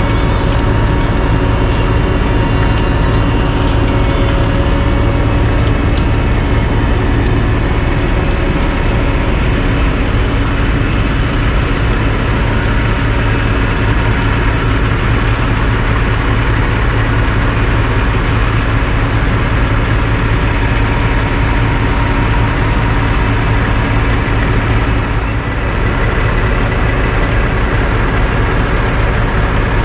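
Heavy diesel engines of a CAT asphalt paver and a Kenworth dump truck running steadily as the truck tips asphalt into the paver.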